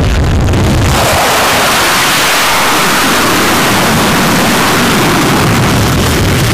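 F/A-18's jet engines running at full power with afterburner lit on the carrier catapult before launch: a loud, steady, rushing roar that cuts in suddenly about a second in. Before that, a low rumble.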